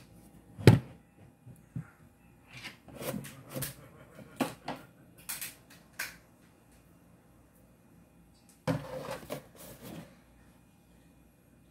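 A string of short knocks, clicks and rustles of things being handled at a dining table, the sharpest a knock under a second in, then a pause of a couple of seconds before a last cluster of knocks.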